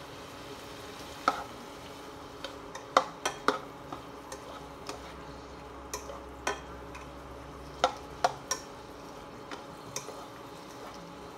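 Plastic spatula stirring chicken and carrots in a nonstick frying pan: irregular sharp taps and scrapes of the spatula against the pan, over a faint steady sizzle of the food frying in oil.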